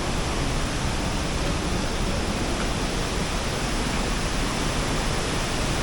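Steady, unbroken rush of falling water from the YS Falls cascades.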